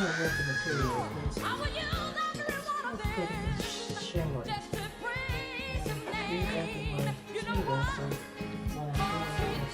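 Background pop song with a singer's voice over a steady beat.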